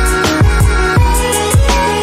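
Electronic background music with a steady drum beat and held synth notes.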